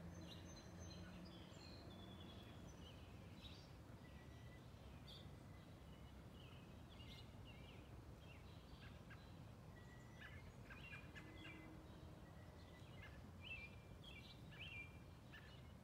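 Faint outdoor ambience: small birds chirping and calling on and off in short, high notes, busier in the second half, over a low steady background rumble.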